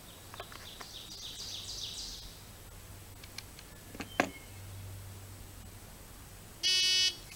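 Birds chirp in a quick run of high notes over the first two seconds, and there is a sharp knock about four seconds in. Near the end a short electronic beep of about half a second sounds: the start signal for the next shooting string.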